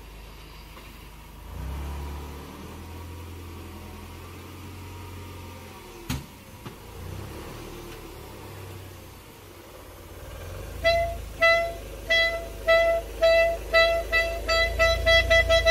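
Low rumble of a car moving slowly, with a sharp knock about six seconds in. Near the end a clarinet plays short notes on one pitch, coming faster and faster until they almost run together, mimicking a car's parking-sensor beeps as it reverses toward a wall.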